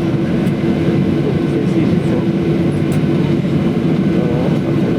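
Steady cabin noise inside a Boeing 737-800 on the ground after landing: a low, even rumble of the engines and air system with a steady hum.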